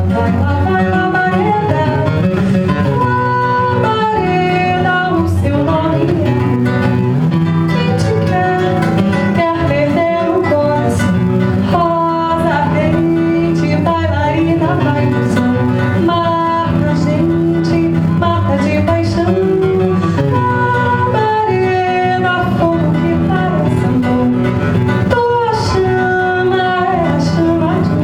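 Music: a violão (nylon-string acoustic guitar) plays steadily, with a gliding melody line above the plucked chords.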